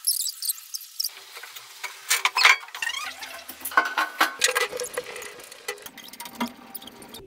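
Sheet-metal panels and frame parts of a metal bike box clattering and scraping as they are handled and fitted together, a quick, irregular run of knocks, rattles and squeaks.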